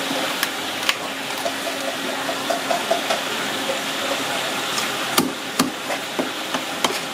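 Cleaver and knife knocking on a wooden chopping block as a fish is cut and cleaned: two sharp chops in the first second, then about four more in the last two seconds, over a steady background hiss.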